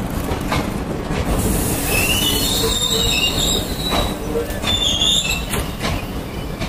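Indian Railways passenger coaches rolling past on a departing train: a steady rumble with a few sharp clacks of wheels over rail joints. A high-pitched wheel squeal sets in about a second and a half in, fades, and comes back briefly near five seconds.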